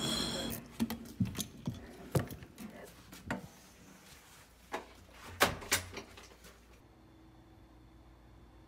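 Irregular clicks and knocks of keys and a door being handled, then quiet room tone with a faint steady hum.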